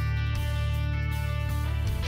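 Background instrumental music with sustained chords that change twice.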